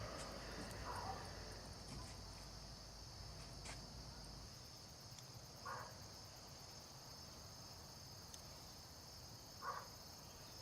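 Faint, steady high-pitched chirring of insects, with a low rumble that stops partway through and two brief faint calls.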